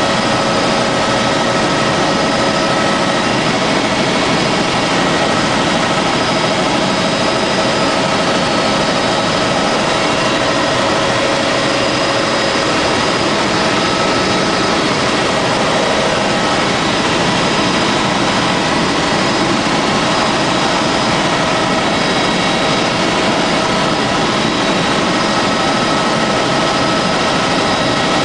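Helicopter engine and rotor noise heard inside the cabin in flight: a loud, steady drone with a constant whine running through it.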